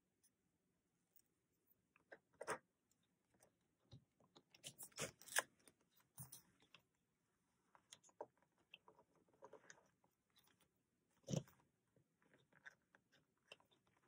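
Crinkling and scattered clicks of a clear plastic ring binder being handled and opened, the loudest about five seconds in and near eleven seconds.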